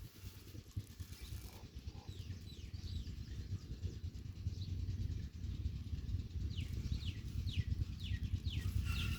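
Baby chicks cheeping: short, high, falling peeps, scattered at first and then coming quickly one after another in the last few seconds, over a steady low rumble.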